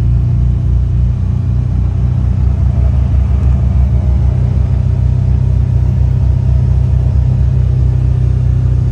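Side-by-side UTV driving at a steady speed, heard from inside its enclosed cab: a steady low engine drone with road noise.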